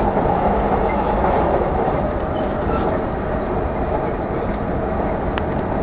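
Steady running noise of a Chuo Line Rapid Service electric commuter train, heard from inside a crowded car while it is under way: a constant low rumble of wheels on rails and the car body, with a small tick near the end.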